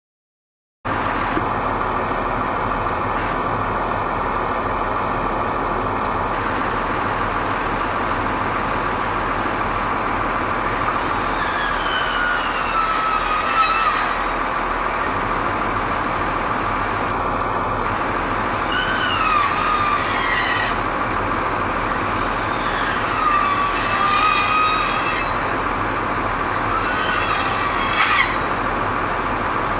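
Power saw cutting into a garage's wooden gable wall: its motor pitch drops as it bites and picks up again, four times, the last with a sharp rev near the end. Under it the tower ladder truck's engine runs steadily with a constant whine.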